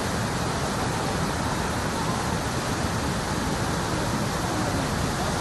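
Whitewater rapids and a waterfall rushing in a steady, unbroken roar.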